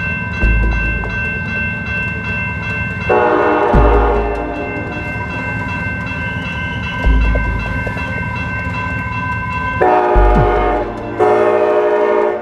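Amtrak Cascades passenger train horn sounding three short chord blasts, the last a little over a second long, over the low rumble of the moving train.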